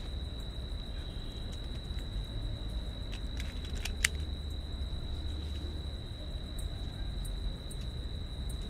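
Night-time outdoor ambience: a steady low rumble under a constant high-pitched tone, with a few faint clicks and one sharp tick about four seconds in.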